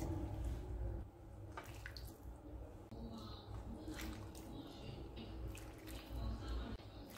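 Soup broth poured from a ladle into a bowl of pork stew: faint splashing and dripping of liquid, with a few light clicks.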